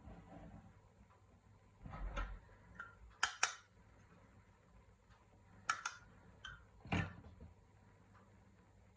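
Small metal parts handled on a work surface: a few sharp clicks and light knocks, two quick pairs about three and a half and six seconds in, then single knocks, with a soft rustle before them.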